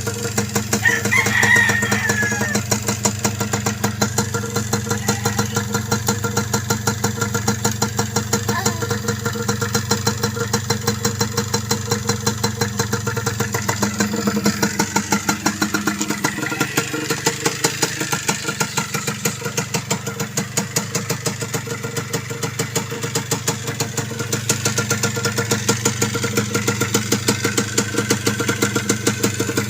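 Yamaha DT125 two-stroke single-cylinder engine idling steadily with an even pulsing beat. A rooster crows once about a second in.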